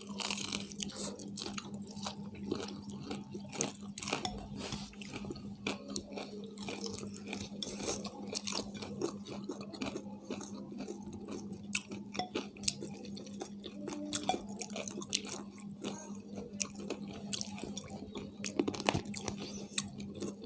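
Close-up chewing and biting of fried chicken: many short wet clicks and smacks at an uneven pace. A steady low hum runs underneath.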